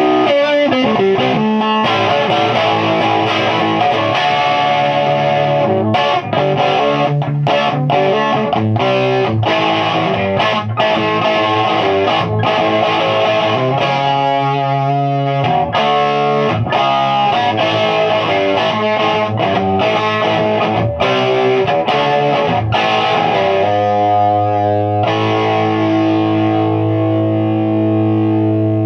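Electric guitar chords from a 1975 Les Paul Deluxe with P90 pickups played through a Mojotone 5E3, a hand-wired clone of the tweed Fender Deluxe valve amp with 6V6 power valves. The amp is turned up all the way and heavily overdriven, playing into a four-speaker cabinet. The chords come as short, choppy stabs through the middle, and about 25 seconds in a chord is left ringing out.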